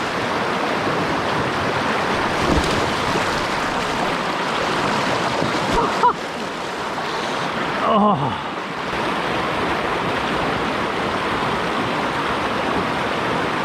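River water rushing steadily, with a short exclaimed "oh" about eight seconds in.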